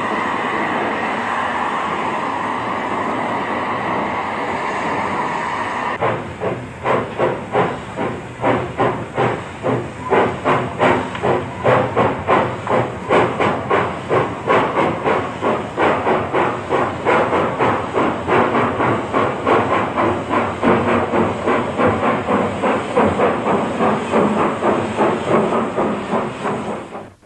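Restored 1897 Baldwin compound steam cog locomotive No. 4 hissing steam, then about six seconds in beginning a steady chuff of exhaust beats, about two a second, as it works along the track, fading out at the very end.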